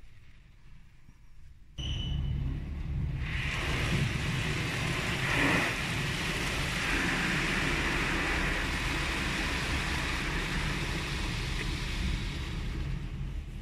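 Automatic car wash spraying water onto a car, heard from inside the cabin: a steady low rumble of the wash machinery starts suddenly about two seconds in, and a second later a strong, even hiss of water spray hitting the car joins it and holds until near the end.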